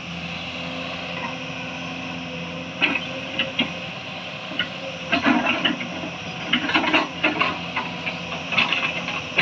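Hyundai crawler excavator's diesel engine running steadily as its bucket digs into a bank of earth, with sharp knocks and scrapes of the bucket and loosened soil and stones starting about three seconds in and coming more often in the second half.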